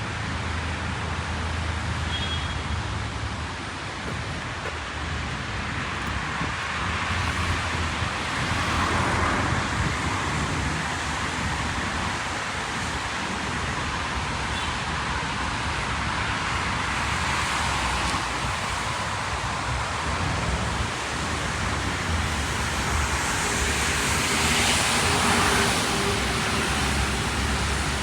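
Steady hiss of rain with cars passing on a wet street, several swelling up and fading away, the loudest near the end.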